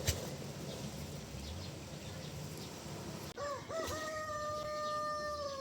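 A sharp click at the very start. Then, about three and a half seconds in, a rooster crows: two short rising notes and then one long held note that begins to fall away.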